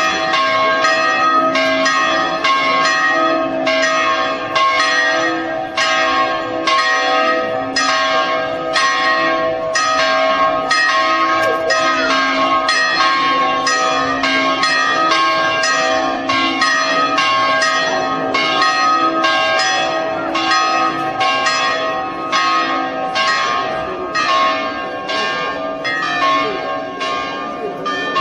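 Church bells pealing: several bells ringing over one another, struck in a quick, regular rhythm that keeps going without a break.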